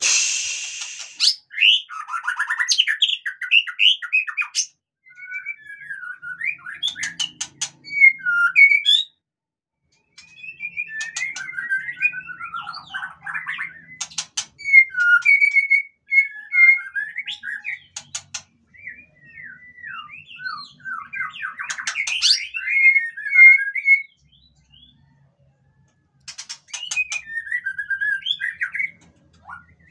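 White-rumped shama singing in bouts of varied whistled phrases that glide up and down, with sharp clicks mixed in and two short pauses. A brief loud hiss-like burst comes right at the start.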